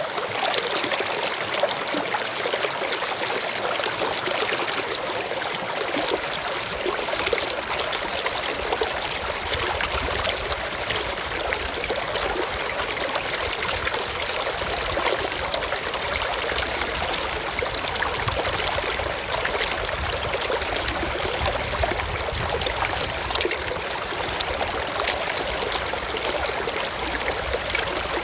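Stream water flowing and trickling steadily, an even rushing hiss with no breaks. A low rumble joins the flow about a third of the way in.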